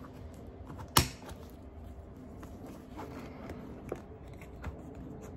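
Strap clip on a Yeti M12 backpack cooler snapping shut with one sharp click about a second in, followed by quiet rustling and a few light ticks as the strap and cooler are handled.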